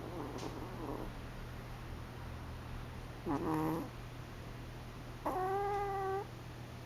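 A sleeping pet snoring, each breath giving a whistling, pitched snore: a short one about three seconds in and a longer, steady one about two seconds later.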